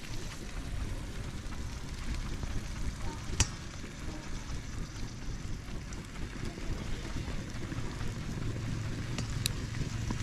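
Wind rumbling on the microphone, with a sharp click about three and a half seconds in and a fainter one near the end.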